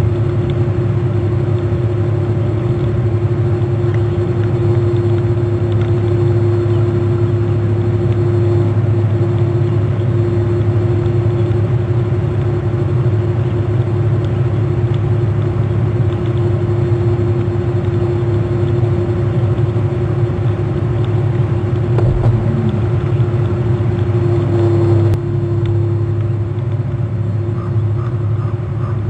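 Steady low mechanical rumble with a constant hum, easing slightly about 25 seconds in.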